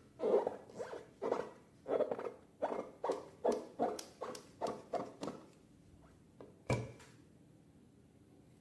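Slime squelching and popping in a quick rhythmic run, about three wet pops a second, stopping about five seconds in. A single sharp click comes near the end.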